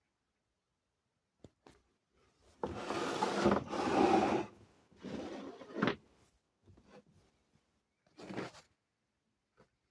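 Rubbing and scraping handling noises in a few irregular spells, the longest and loudest about three to four and a half seconds in, a shorter one near the end; no motor is running.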